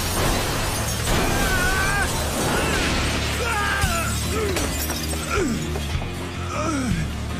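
Glass shattering and shards scattering as a van smashes through a glass front, over dramatic background music.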